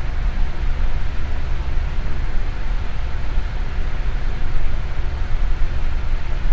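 Electric fan running steadily, blowing an even rush of air that is strongest in the deep range, with a faint motor hum underneath.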